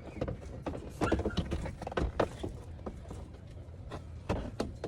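Hands working a car door's power window switch free of its wiring connector: scattered sharp plastic clicks and knocks over a steady low rumble.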